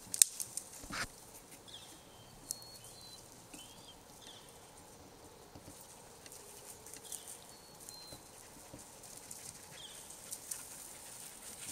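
Quiet forest ambience with scattered short, high chirps of small birds every second or so. Two sharp knocks come in the first second, the first one the loudest sound.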